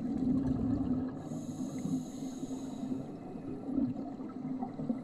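Underwater sound of scuba divers breathing through their regulators: a steady gurgling wash of exhaled bubbles, with a breath hissing in between about one and three seconds in.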